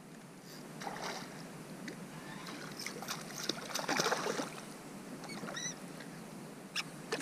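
Hooked fish splashing and thrashing at the surface of a calm lake as it is played in on a rod, in several bursts with the biggest splash about four seconds in. A short high chirp follows a little later.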